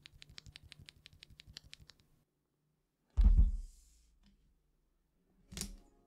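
A single linear mechanical keyboard switch (nylon housing, POM stem) pressed over and over in the fingers, light plastic clicks about five or six a second for some two seconds. About three seconds in comes one loud low thump, and near the end a short crisp crackle as a utility knife cuts into a box's plastic wrap.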